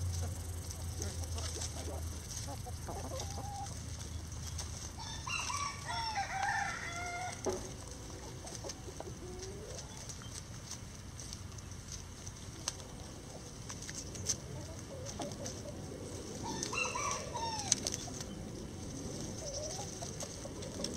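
A rooster crows twice, a long crow about five seconds in and a shorter one later, with hens clucking in between.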